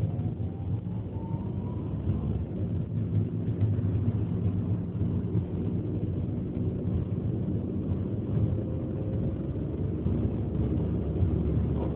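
Ford Focus under way, its engine and road noise running steadily, with a faint rising whine in the first couple of seconds. The car is being driven through the shift from second to third gear, where the owner hears an abnormal noise.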